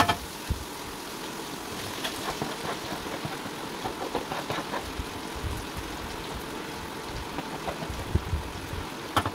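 A wooden spatula knocks and scrapes in a non-stick wok as fried chicken pieces are scraped in from a plastic container and stirred with frying onions, over a steady hiss. The taps come irregularly, a few each second in places.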